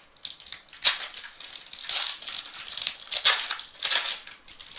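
Sports trading cards and their packaging being handled: irregular rustling, crinkling and sliding swishes, with the loudest swishes about a second in and again past three seconds.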